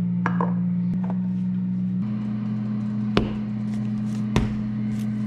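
Sustained low background music chords that shift pitch about two seconds in, with two sharp clicks of spice shakers being set down on a glass-top stove about three and four seconds in.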